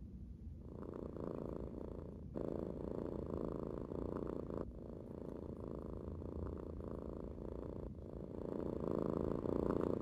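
Domestic tabby cat purring contentedly while having its chin rubbed, a steady rapid rumble that starts about half a second in and pauses briefly every two to three seconds between breaths, growing louder near the end.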